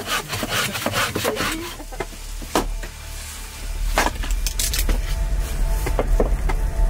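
A small axe splitting firewood into kindling: a series of sharp, irregularly spaced knocks as the blade strikes and drives into the wood, starting about two and a half seconds in.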